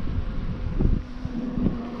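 Wind buffeting the microphone during an e-bike ride, a gusty low rumble, with a steady hum coming in about a second in.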